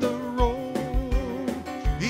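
Live gospel music on a Yamaha stage piano: a steady low bass beat with a held, wavering melody note over it.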